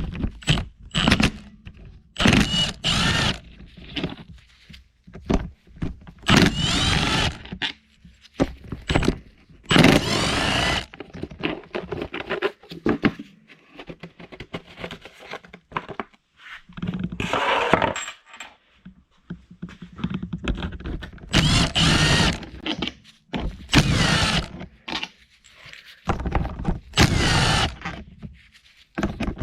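Milwaukee 1/4-inch cordless impact running in short bursts of about a second each, spinning bolts out of a Subaru EJ20 engine during teardown. Between bursts there are clinks and knocks of bolts and parts being handled.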